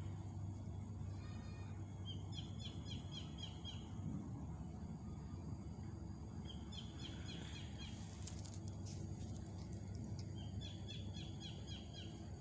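A bird calling three times, each call a quick run of about five or six short high notes, over a steady outdoor background noise.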